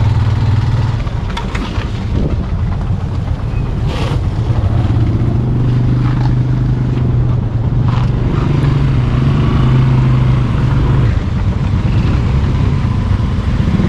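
Motorcycle engine idling and running at low speed, with other motorcycles' engines around it. The engine note shifts in pitch partway through as the bike moves off, and two short knocks come about four seconds apart.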